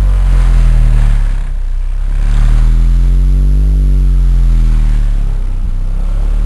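Car-audio subwoofers playing a bass-heavy track at very high volume inside the cabin, concentrated around the system's 30–50 Hz peak: a deep, steady low bass note with higher bass tones sliding up and down above it.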